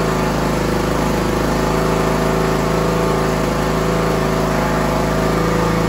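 John Deere D105 riding mower's newly installed replacement engine running steadily, seconds after catching on its first start with the choke set.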